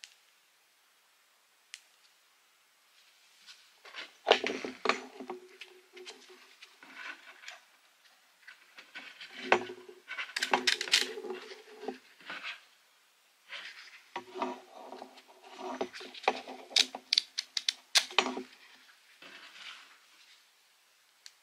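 Handling of a Nitecore NSC10 plastic shoulder clip and its small clip-on light in gloved hands: clusters of small plastic clicks and snaps mixed with rubbing and rustling. The handling starts about four seconds in and stops a couple of seconds before the end.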